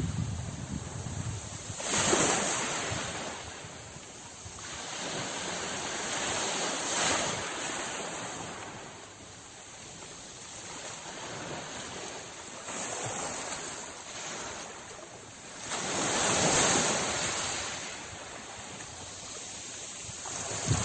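Sea waves washing onto the shore in slow swells, the loudest surges about two seconds in, around seven seconds and near sixteen seconds, each ebbing away between.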